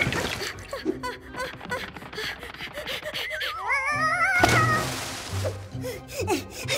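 Cartoon soundtrack: background music with comic sound effects, many quick clicks and taps, and a wordless character voice. A long wavering cry comes a little past the middle.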